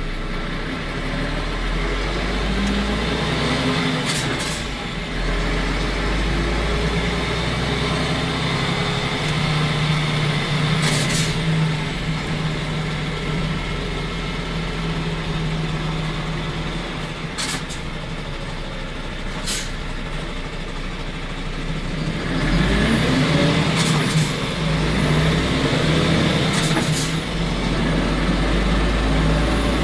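A heavy truck's diesel engine pulls away and accelerates, heard from the cab with the roof hatch open. Its pitch rises through the gears about three seconds in and again after twenty seconds, with several brief air hisses along the way.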